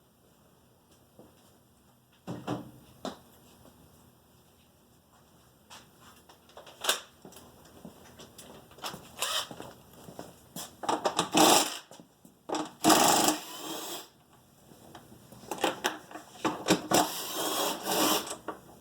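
Socket ratchet clicking in quick runs as seat and tank bolts are worked loose on a dirt bike, with knocks and scrapes of tools and parts in between.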